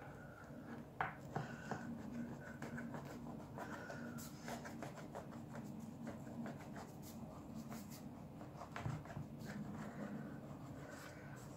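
A small knife slicing through rolled filo pastry rolls in a metal baking tray: faint crackly scratching of the layered pastry sheets, with scattered light clicks.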